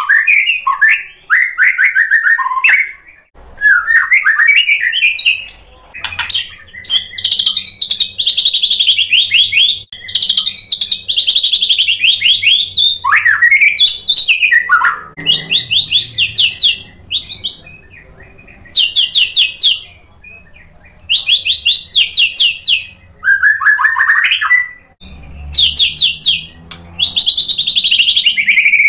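White-rumped shama (murai batu) singing loud, varied song. It gives fast rattling runs of quickly repeated high notes in short bursts with brief pauses between them, and lower gliding whistles near the start and again near the end.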